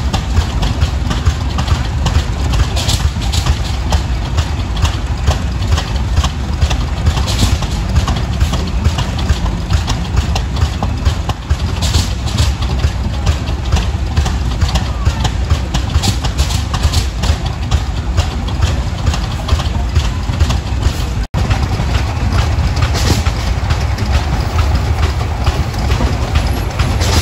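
Vintage steam traction engine and old farm tractor engines running as they move along: a steady low rumble with a slow, rhythmic beat.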